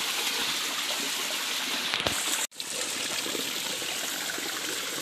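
Water of a small stream trickling and splashing over rocks in a steady rush. The sound cuts out for an instant about halfway through.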